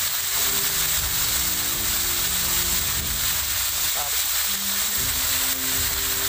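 Whole mud crabs sizzling in a hot wok, a steady frying hiss.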